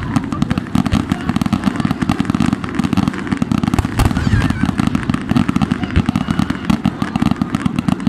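Aerial fireworks display: a rapid, unbroken barrage of shell bursts and crackle, with a sharper bang about halfway through.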